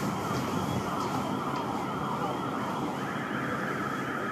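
Sirens wailing: repeated overlapping falling glides in pitch, which settle into a steady held tone about three seconds in, over a low background rumble.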